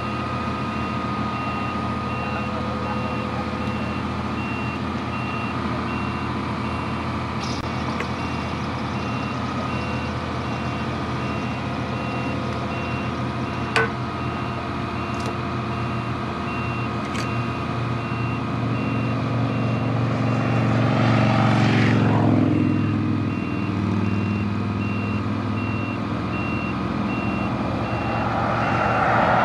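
Volvo excavator's diesel engine running steadily as it holds a load on its boom, with a steady run of high, evenly spaced warning beeps. Vehicles pass on the road about twenty seconds in and again near the end, swelling and fading.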